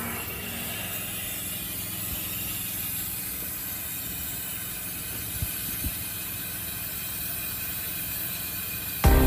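Steady background hiss with two faint metallic clicks a little past the middle, from a long-handled wrench being worked on the excavator's track roller bolts. Music comes in at the very end.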